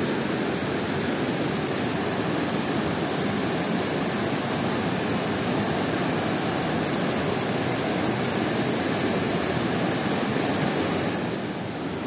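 Steady rushing of the swollen Jagran river, running high and fast with rain and snowmelt, dipping slightly near the end.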